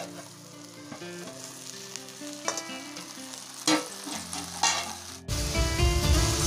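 Chuch wild greens frying in oil in a kadhai over a wood fire, stirred with a steel spoon: a few separate clinks and scrapes of spoon and lid on the pan, then, after a sudden jump about five seconds in, loud steady sizzling with stirring.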